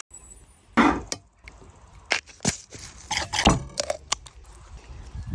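A string of short food-prep handling sounds. A glass spice jar is set down on a wooden board, then kitchen shears snip and crunch through the backbone of a raw whole chicken, with sharp clicks and knocks in between.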